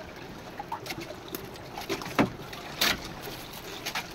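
Steady ambience of water around a moored wooden boat, with a few sharp clicks and taps from people eating grilled fish by hand; the two loudest come a little past halfway.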